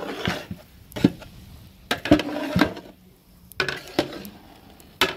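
A long metal spoon stirring thick soya-chunk chilli in a large aluminium pot: scraping through the chunks, with several sharp clinks of metal on the pot's side.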